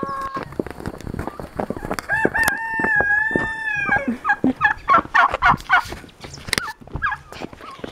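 A rooster crows once, a long call starting about two seconds in. It is followed by a rapid string of short wavering calls from a flock of domestic turkeys.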